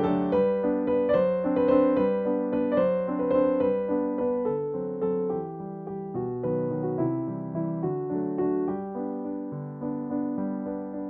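Background piano music: a gentle piece of single notes and chords played in a flowing, steady rhythm.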